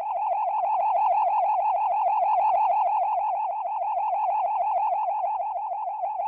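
Cartoon sound effect: an electronic tone held at one pitch with a fast, even warble, several wobbles a second.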